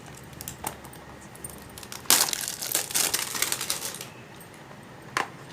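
Packaging of a facial kit being opened by hand: crinkling and rustling with small clicks, busiest from about two to four seconds in.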